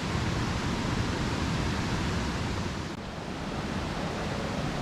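Steady rushing of water from Yoro Falls and its stream, an even roar that drops slightly in level about three seconds in.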